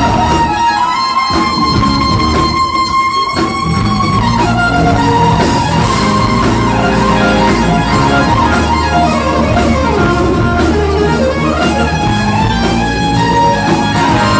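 Live funk band jam led by keyboards over bass and drums, with a held lead line that slides up and down in pitch.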